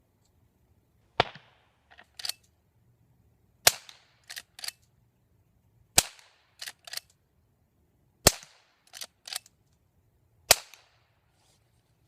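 Five fairly subdued shots from a Henry lever-action .22 LR rifle firing CCI Quiet-22 subsonic rounds at about 710 feet per second, spaced a little over two seconds apart, each with a short fading tail. After every shot come two quick clicks as the lever is worked to chamber the next round.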